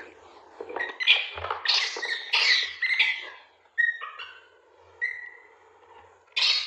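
Baby macaques giving high-pitched squealing calls, several in a quick run, then shorter single calls and one more loud squeal near the end.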